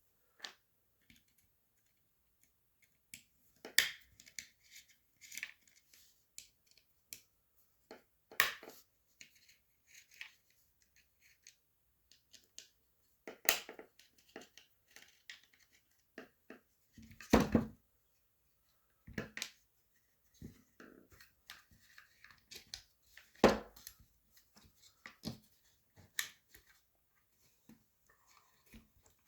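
Scattered small clicks, taps and knocks of an Allen key and receiver parts being handled on a work surface while two small screws are undone, with about five louder knocks spread through the stretch.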